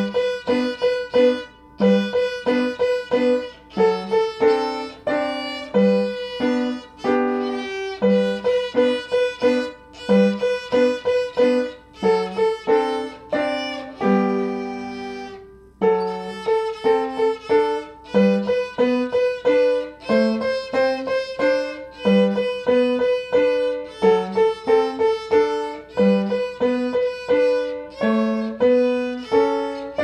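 A child playing a bowed violin: a lively tune of short, separate notes, many of them repeated quickly on one pitch, with a longer held note about halfway through.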